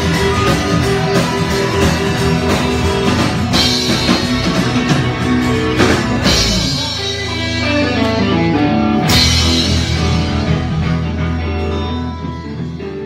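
Rock band playing with guitars and drum kit, with three loud crashes spread through it. The music fades near the end.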